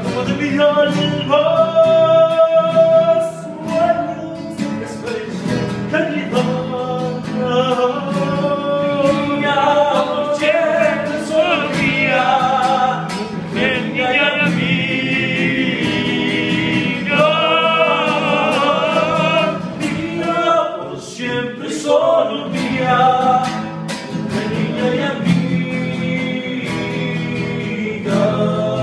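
Three men singing a slow song together to a strummed nylon-string acoustic guitar.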